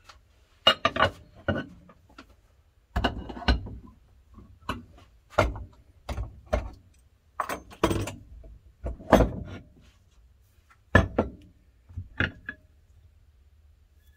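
Metal clanks and clicks from a machine vise being cranked open and an aluminum bait mold being taken out and handled: about a dozen separate sharp knocks at irregular intervals, the loudest around the middle.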